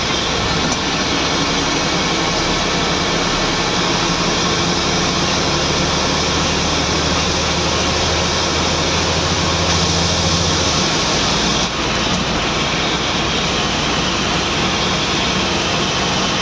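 Scania N94UD double-decker bus heard from the upper deck while under way: the diesel engine running under load beneath loud road and wind noise through the body. About eleven seconds in, the low engine note drops away and the level dips briefly, as the gearbox changes gear.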